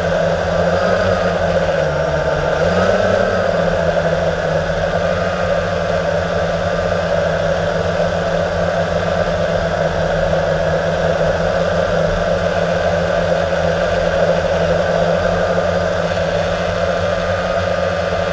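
Blade 350 QX quadcopter's electric motors and propellers whirring steadily, heard from on board. The pitch dips and then rises about two to three seconds in as the motors change speed, then holds level.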